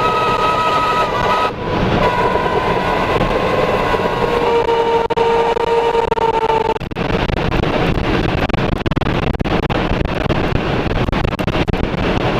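Violent tornado winds rushing over the armoured Tornado Intercept Vehicle 2, heard from inside. For the first several seconds several steady whistling tones ride on the roar. About seven seconds in they stop, and a loud rushing noise full of quick sharp ticks and knocks takes over, the sound of the vehicle being struck.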